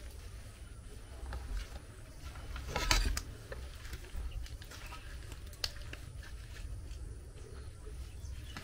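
Faint taps and clicks of hands handling soft dough and a wooden rolling pin on a tabletop, with a louder clatter about three seconds in and one sharp click a little later, over a steady low rumble.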